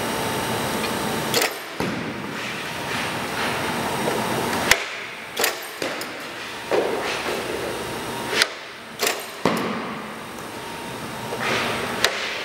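Goalie skate blades scraping across synthetic ice and leg pads dropping onto the plastic during butterfly drills, with about nine sharp knocks and thuds at uneven intervals.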